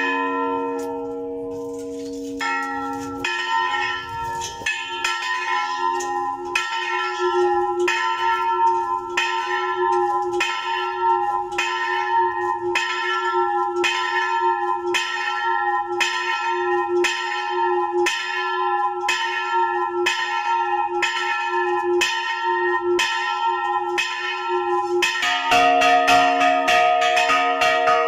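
Church bells rung by hand with a rope on the clapper: a bell struck in a quick, even run of strokes, about one and a half a second, then near the end a deeper bell struck louder and ringing on. It is the third call, the last peal before Mass.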